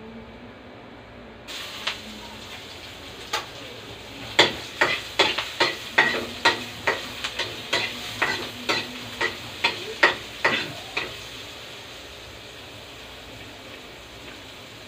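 Chopped onion sizzling in hot oil with garlic in a wok, the sizzle jumping up about a second and a half in. From about four seconds in, a metal ladle scrapes and knocks against the wok about two to three times a second as it stirs, stopping a few seconds before the end while the frying carries on.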